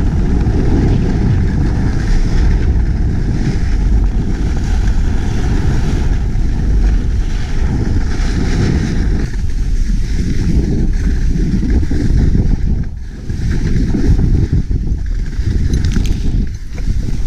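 Wind buffeting the microphone of a camera on a moving ski bike, a loud low rumble that eases briefly twice as the speed changes.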